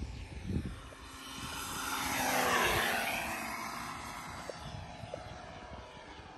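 Radio-controlled FMS 1450mm P-51 Mustang model making a low pass: its motor and propeller grow louder to a peak about two and a half seconds in, the pitch drops as it goes by, and then the sound fades away.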